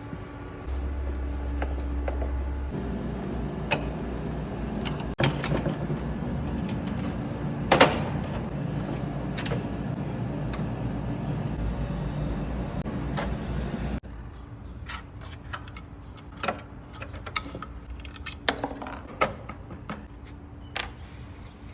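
A steady machine hum with scattered small clicks and taps; the hum stops suddenly about two-thirds of the way through, leaving quieter, more frequent clicks and taps like small parts being handled.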